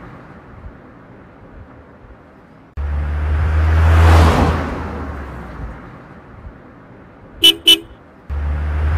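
Car drive-by sound effect: a low engine hum with a whoosh that swells and fades, cutting in abruptly about three seconds in and again near the end. A short double toot of a car horn comes just before the second drive-by.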